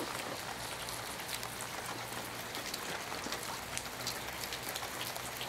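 Steady rain falling, an even hiss with many scattered drops ticking close by.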